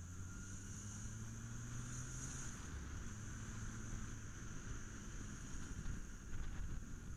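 Road-traffic ride recorded from a moving vehicle: a steady low engine hum with wind rushing on the microphone and a faint steady high-pitched whine over it.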